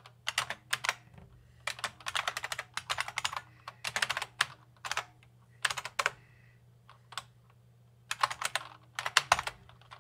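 Typing on a computer keyboard in short bursts of keystrokes with brief pauses between.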